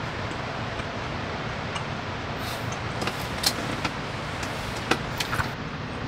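Steady hiss with a few light clicks of chopsticks and tableware in the second half.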